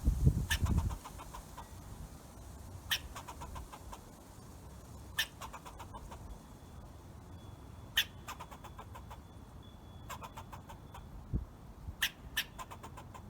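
Squirrel calling: sharp, short chirps every two to four seconds, each trailed by a quick rattling run of clicks, with two chirps close together near the end.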